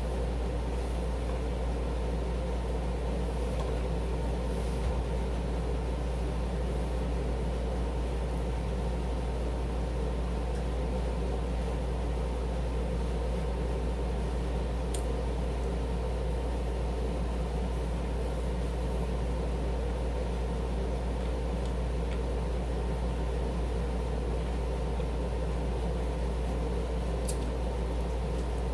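A steady, even hum made of several constant low tones, like a fan or small appliance running, with a couple of faint clicks.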